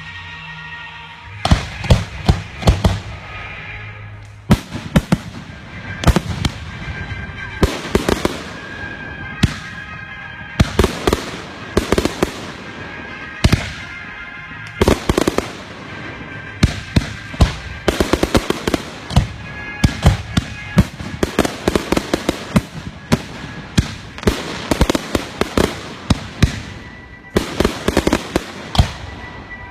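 Fireworks display: aerial shells bursting in rapid clusters of sharp bangs and crackles, beginning about a second and a half in, with music playing underneath.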